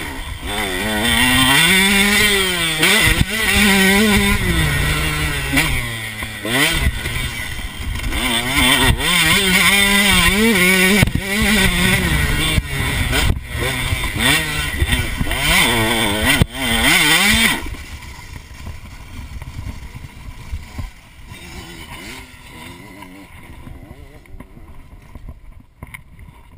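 KTM 125 SX two-stroke motocross engine revving hard, its pitch rising and falling again and again through the gears. About two-thirds of the way through, the engine sound stops suddenly and only faint wind and rolling noise remain, as the bike's drive chain has broken.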